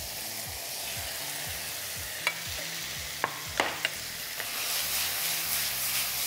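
Marinated chicken pieces sizzling in oil in a very hot pan as they sear, a steady frying hiss that grows a little louder in the second half. A few sharp clicks come between about two and four seconds in.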